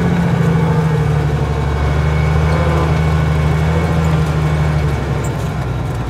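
Truck engine running steadily as the truck is driven, heard from inside its cab; the note eases slightly about five seconds in.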